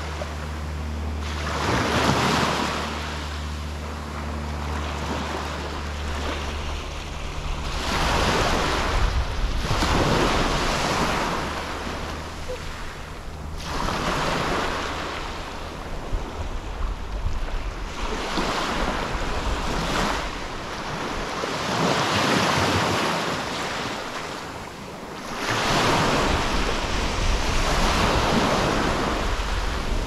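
Gentle sea waves breaking and washing up the beach, swelling and fading every few seconds. Wind buffets the microphone near the end.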